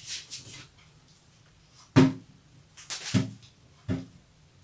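Wooden rolling pin knocking and rolling on a table top as it goes over the edges of thin dough: a few separate knocks, the loudest about two seconds in, with quiet between them.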